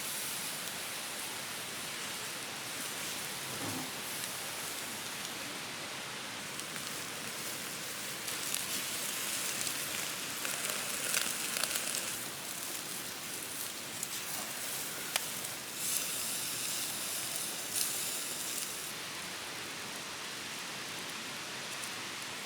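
Meat sizzling over a charcoal fire: a steady crackling hiss that grows louder in two stretches with a few sharp pops.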